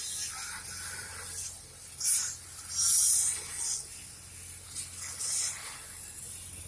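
Stick welding arc on a steel gas pipeline joint, run downhill with cellulosic electrodes, crackling and hissing, with loud surges about two and three seconds in. A steady low hum runs underneath.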